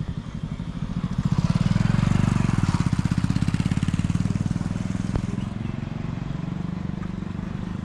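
A motorcycle engine running as the bike rides along the road, loudest about two seconds in, then easing off to a lower steady level as it draws away.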